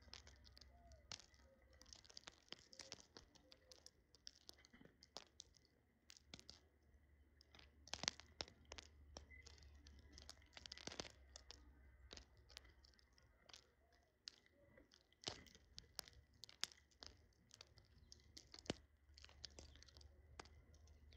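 Faint, irregular clicks and crunches of small birds pecking at and cracking their food, with short bursts of rustling.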